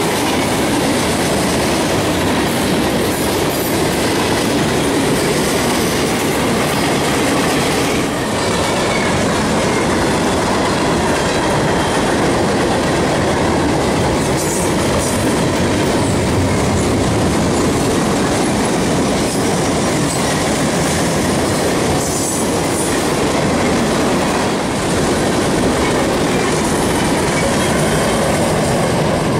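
Freight train cars rolling past, a steady rumble and clatter of steel wheels on the rails.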